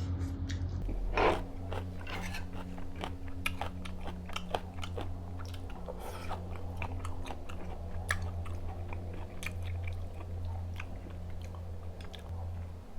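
Close-miked mouth sounds of someone eating spicy ramyun: chewing with many small wet clicks, over a steady low hum. There is a louder knock about a second in.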